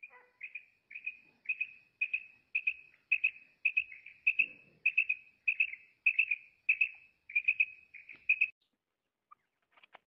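Female quail giving its 'krik' call: a steady series of short, high double-note calls, about two a second, that stops shortly before the end.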